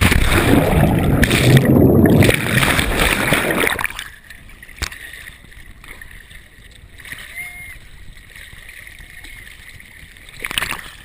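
A body plunging into the sea after a jump from a cruise ship's deck, heard from a camera going under with it: a sudden loud splash, then rushing, bubbling underwater noise for about four seconds. It then drops to quieter water lapping around the camera at the surface, with a couple of sharp splashes near the end.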